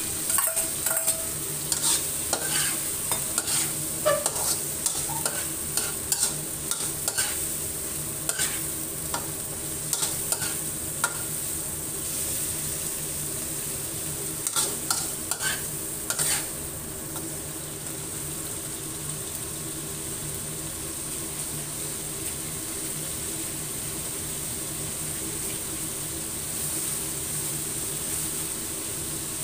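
Sliced pork frying with garlic in a wok, sizzling steadily. For the first fifteen seconds or so a spatula stirs it, scraping and knocking against the pan; after that there is only the steady sizzle.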